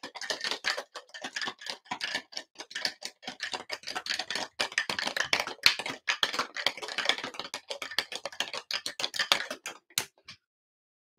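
Ice rattling inside a Boston shaker, a mixing glass fitted into a metal tin, shaken hard: a fast, dense run of knocks that stops about a second before the end.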